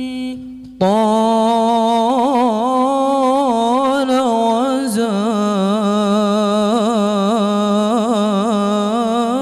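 A young man's solo singing voice, amplified through a handheld microphone and unaccompanied, in a slow melismatic Arabic devotional (sholawat) line. A new phrase begins about a second in and carries on in long held notes with quick wavering turns.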